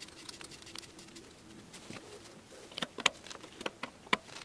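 Shimano Hollowtech II bottom bracket cup being threaded into the frame's shell and then engaged with the notched cup tool: a handful of sharp metal clicks in the second half, over a faint low hum early on.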